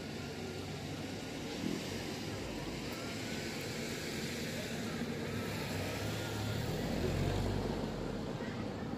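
Steady engine and tyre noise of a passing motor vehicle out of sight, swelling gradually to its loudest about seven seconds in.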